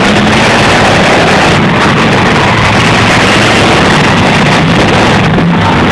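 Demolition derby cars' engines running together in a loud, steady din.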